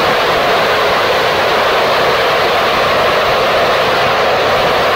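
Gilmour Space 'Phoenix' third-stage liquid rocket engine firing steadily on a test stand, a loud, unbroken rush of exhaust noise with no change in level. This is about two minutes into a 190-second mission duty cycle burn.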